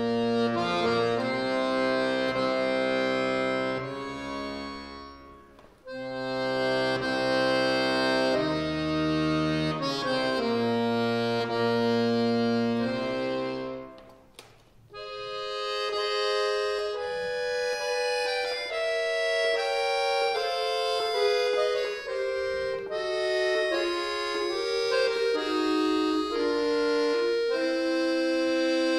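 Chromatic button accordion played solo: chordal passages with bass notes, broken by a short pause about six seconds in and another about fourteen seconds in, then a lighter melodic passage in the upper register without bass.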